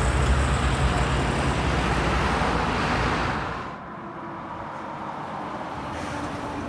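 A road vehicle passes close by. Its engine and tyre noise is loud for about three and a half seconds, then falls away to quieter traffic noise.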